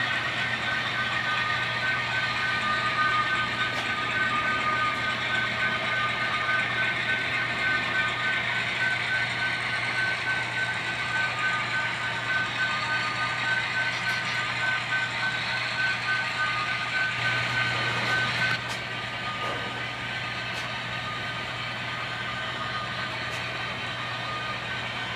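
Model freight train rolling along the layout's track: a steady hiss and rattle of wheels on rails with a thin high whine, which drops in level about eighteen seconds in.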